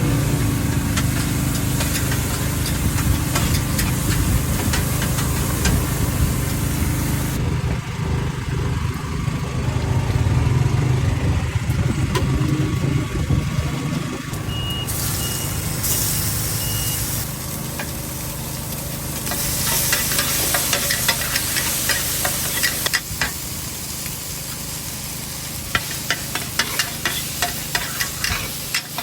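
Char koay kak frying in a wok over a steady low rumble, with sizzling and the rapid clatter of a metal spatula on the pan, busiest in the last third. The sound changes abruptly several times, and a few short high beeps come around the middle.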